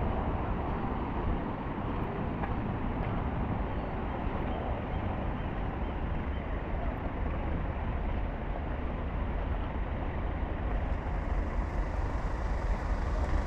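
Steady low rumble of motor vehicles running, like road traffic, with no distinct events.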